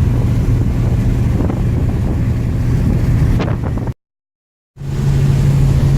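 V8 Volvo engine droning steadily with road and wind noise heard from inside the cabin while driving. The sound drops out completely for under a second about four seconds in, then comes back with the engine note a little higher.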